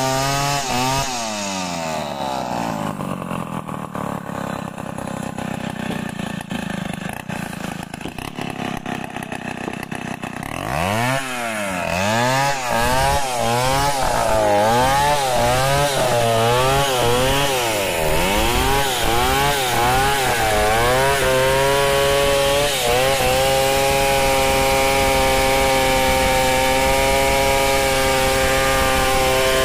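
Large two-stroke chainsaw ripping lengthwise along a mahogany log in freehand milling. About a second in the engine drops to low speed and stays there for several seconds. It then revs back up, rising and falling about once a second as the bar works into the cut, and from a little after halfway runs steadily at high speed through the wood.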